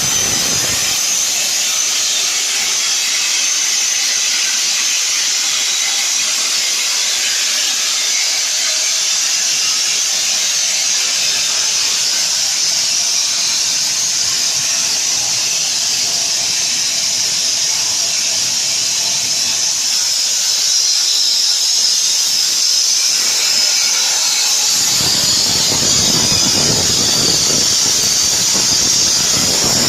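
Tesla Weld CUT160 plasma cutter cutting thick steel plate: a loud, steady hiss with a high squeal over it. About 25 seconds in, a deeper rushing noise joins it.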